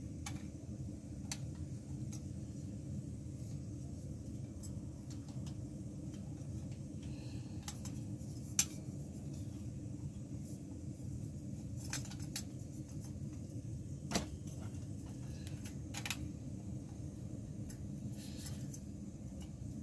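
Plastic canister-stand legs clicking and snapping as they are handled and clipped onto a screw-top gas canister, several sharp clicks with two louder snaps. Underneath, a steady low roar from a gas camping stove burning under a pot.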